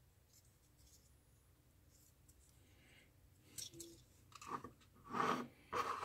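Faint handling noise of a small circuit board with plastic pin headers: a few short clicks and scrapes in the second half, after a stretch of near quiet.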